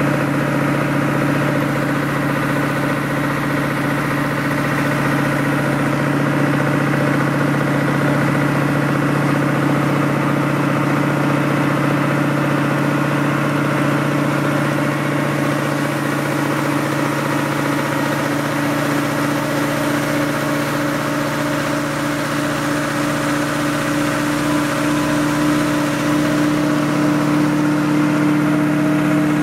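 An engine idling steadily, a constant low hum that does not change in pitch.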